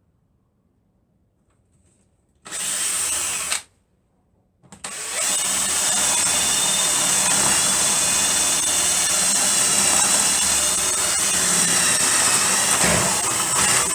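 Electric drill boring drainage holes into a wooden fence: a burst of about a second, a short pause, then a long steady run with a high whine.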